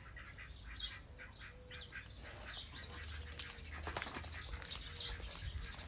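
Birds chirping: many short, high calls, some sliding down in pitch, repeating over a low rumble.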